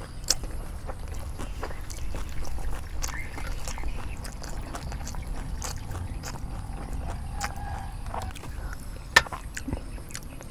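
Crispy rice pancake (bánh xèo) being torn apart by hand and chewed close to the microphone: a run of crackles and crunchy clicks over a steady low rumble, with one sharper click about nine seconds in.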